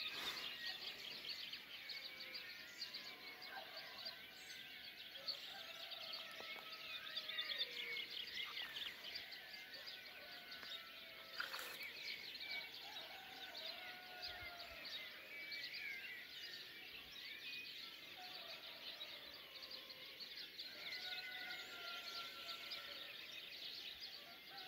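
Faint dawn chorus of many small songbirds chirping and trilling together, with roosters crowing now and then underneath.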